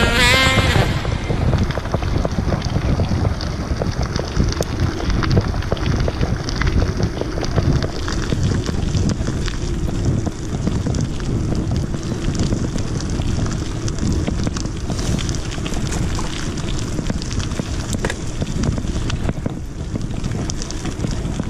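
Wind buffeting the camera's microphone over the crunch and rattle of mountain-bike tyres rolling fast down a gravel road.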